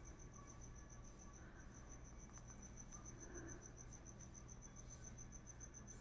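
A cricket chirping faintly and steadily in a rapid, even pulse of about eight chirps a second, over a low background hum.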